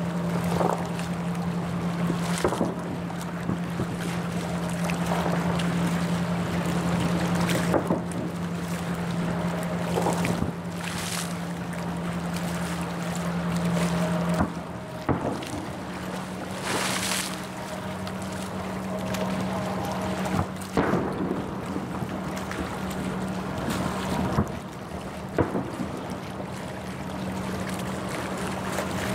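Aerial fireworks shells bursting: about ten booms spread irregularly a few seconds apart, some trailed by a crackling hiss. Under them runs a steady low hum that breaks off briefly about halfway through.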